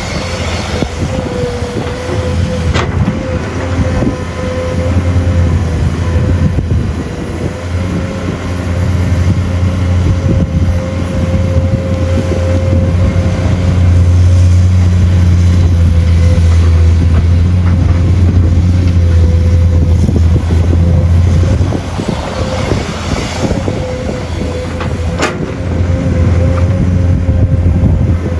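Excavator's diesel engine running under load, its low drone swelling louder for several seconds midway, with a steady whine above it and a couple of sharp knocks.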